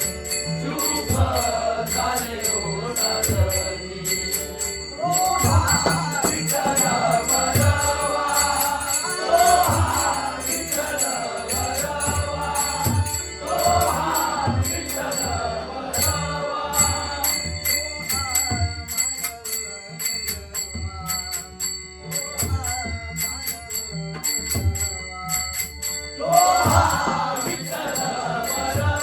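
Traditional Konkan bhajan: devotional singing over a steady drum beat and continuously clashing small hand cymbals (taal).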